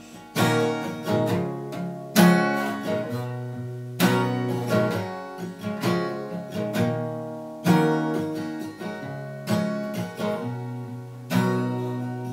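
Acoustic guitar played alone, without voice: a chord strummed hard about every two seconds with lighter picked and strummed notes between them.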